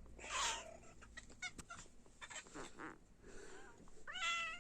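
Kittens mewing: several short, high-pitched calls, the loudest and longest coming near the end.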